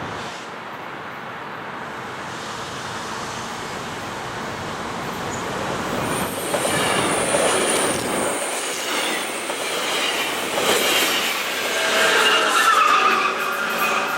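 A train rolling along the rails, getting louder as it passes. High, thin wheel squeal joins in during the second half.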